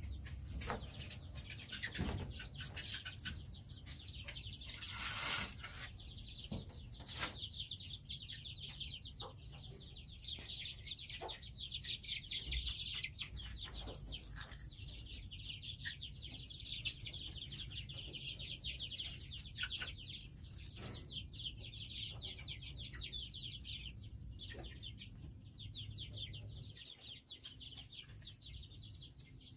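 A pen of several-week-old chicks peeping, many high cheeps overlapping without pause. A few knocks and a brief rustle come in the first several seconds.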